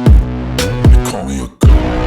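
Electronic dance music: loud bass hits that fall in pitch, under steady synth chords. The music cuts out for a split second about one and a half seconds in, then comes back.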